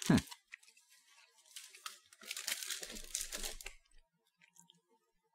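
A short 'mm' from a person's voice, falling in pitch, at the very start. Then, about two seconds in, thin plastic snack packaging crinkling and rustling for about a second and a half as it is handled.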